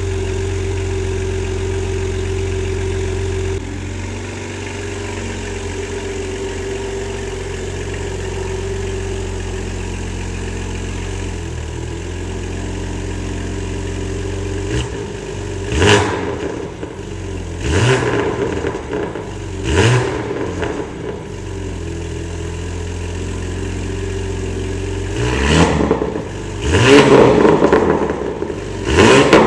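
BMW G80 M3's S58 twin-turbo inline-six, breathing through catless downpipes and a titanium equal-length X-pipe catback, idling steadily, then revved in three short blips about two seconds apart from about halfway in, and a quicker run of harder revs near the end.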